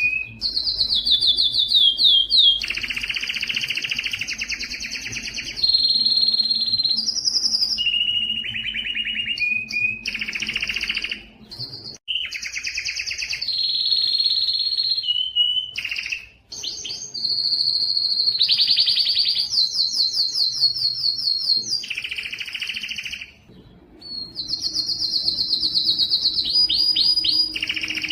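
Male Spanish timbrado canary singing a continuous song of rolling trills and rapidly repeated notes, each phrase held for a second or more before switching pitch, with brief pauses about twelve, sixteen and twenty-three seconds in.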